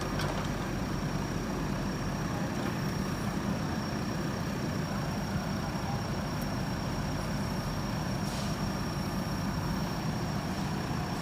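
JCB 3DX backhoe loader's diesel engine running steadily, with a thin high-pitched whine held throughout.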